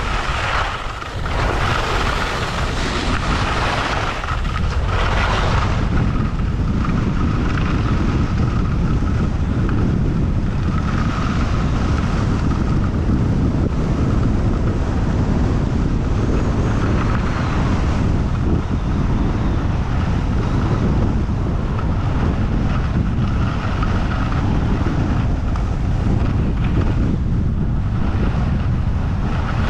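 Wind rushing over a GoPro Hero 8's microphone and skis sliding on groomed snow during a fast ski run. The sound swells and falls a few times in the first several seconds, then settles into a steady rumbling rush.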